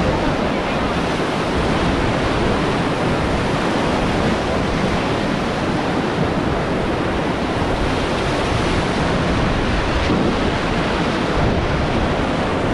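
Steady rushing of river water around a raft, with wind buffeting the microphone.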